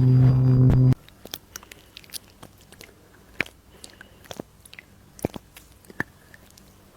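A small electric device hums steadily and cuts off suddenly about a second in. Soft, scattered clicks and taps of lip-care treatment work follow.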